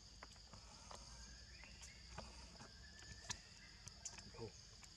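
Faint, steady high-pitched drone of insects, with scattered soft clicks and a brief faint voice-like call about four seconds in.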